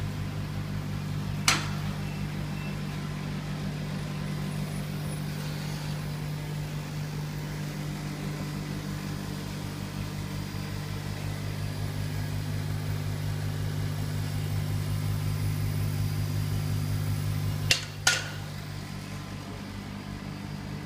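Laser cutting and engraving machine running while it engraves a picture: a steady low hum of its fans and pumps, with a sharp click about a second and a half in and two more close together near the end.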